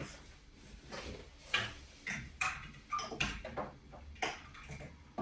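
Irregular clicks, taps and light knocks of hard plastic parts and packaging being handled, about a dozen short sounds with a little rustling between them.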